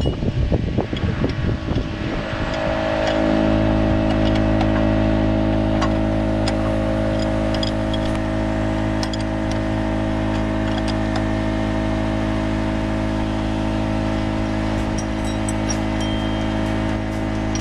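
John Deere skidder's diesel engine running steadily. Its sound rises to a higher, steady speed about two to three seconds in.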